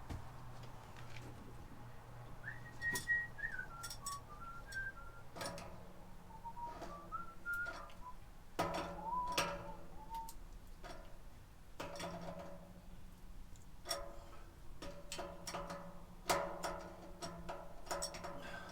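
A person whistling a short tune in broken phrases, with scattered light clicks and taps from handling plumbing parts.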